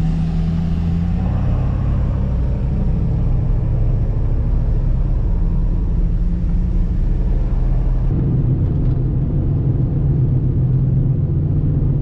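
Motor vehicle driving: a steady low engine hum with road noise. The sound changes abruptly about eight seconds in.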